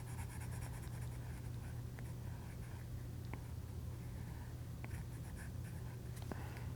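Stylus tip scratching and tapping on an iPad's glass screen while drawing: quiet strokes with a few light clicks, over a steady low hum.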